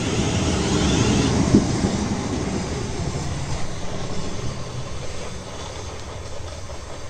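Class 450 electric multiple unit pulling away, its rumbling running noise fading steadily as it recedes, with a single knock about a second and a half in.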